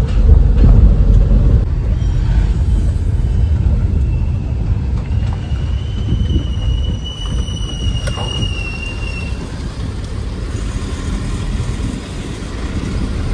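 Car driving on the road, heard from inside the cabin: a steady low engine and road rumble. A thin high whistle rises slightly over about four seconds in the middle.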